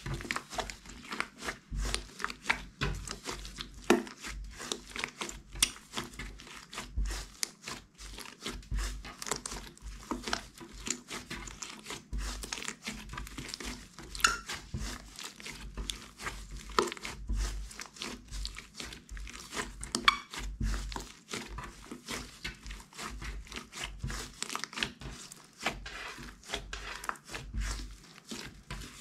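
Hands squeezing, folding and kneading sticky slime: a dense, irregular run of small wet clicks, pops and crackles.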